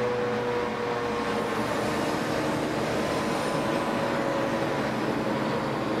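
Steady road-traffic noise. Under it, the H.O.R. Siro-Drone siren's tone fades and sags slightly in pitch in the first couple of seconds as it winds down, leaving a faint lingering tone.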